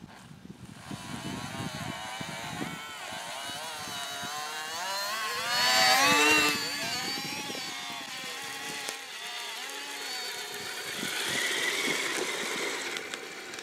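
Electric motors and gears of radio-controlled model vehicles whining, the pitch rising and falling with the throttle, loudest about six seconds in.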